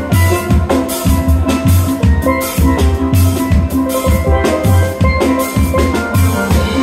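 Steel band playing: several steel pans ringing out a melody over a drum kit keeping a steady beat.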